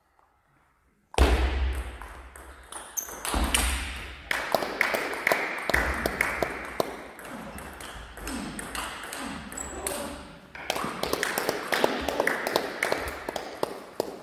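Table tennis ball clicking repeatedly off rubber bats and the table, ringing in a large reverberant hall, with occasional dull thuds. The clicking starts sharply about a second in, after near silence.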